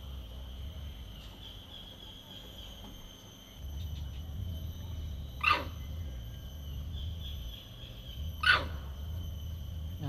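Long-tailed macaques calling: two short, sharp calls about three seconds apart, one near the middle and one near the end.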